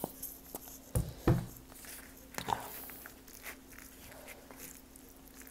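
Two thuds close together about a second in, then light clicks and scrapes of a metal fork mixing tea leaf salad on a paper plate.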